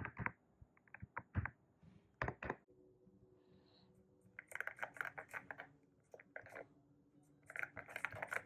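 Typing on a YUNZII C75 mechanical keyboard with Milk V2 switches: a few separate keystrokes, then two quick runs of rapid key clicks, about 4.5 and 7.5 seconds in.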